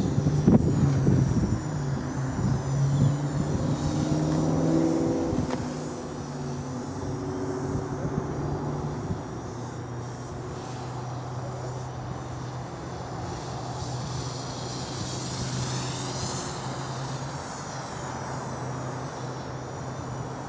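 GAUI 330X-S quadcopter's motors and propellers buzzing in flight, a steady hum whose pitch shifts a little as the throttle changes. It grows quieter about five seconds in and carries on at a lower level.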